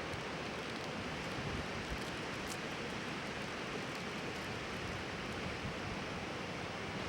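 Wood bonfire burning: a steady rushing hiss with a few faint, brief crackles.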